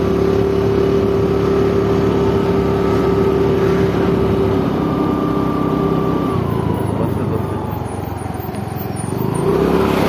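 Vehicle engine running under way on the move, its note holding steady and then falling in pitch and easing off about six seconds in before picking up again near the end.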